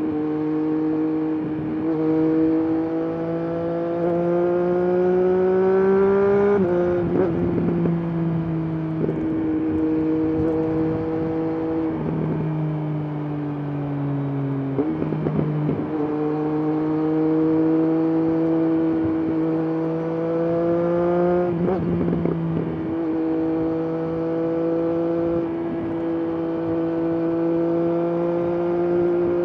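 Triumph Daytona Moto2 765's three-cylinder engine and exhaust under way, its pitch climbing slowly as it pulls and dropping sharply at an upshift about a fifth of the way in and again about two-thirds in. Near the middle it eases off, its pitch sagging for a few seconds, then steps back up at a gear change.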